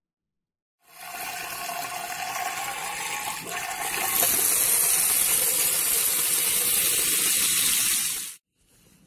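Water running from a sink faucet. It starts about a second in, grows louder about four seconds in, and stops abruptly near the end.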